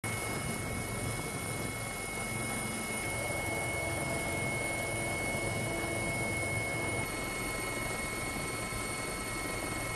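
AH1 Wildcat helicopter heard from inside its cabin: steady rotor and turbine engine noise with a high whine over a low rumble. The whine changes slightly about seven seconds in.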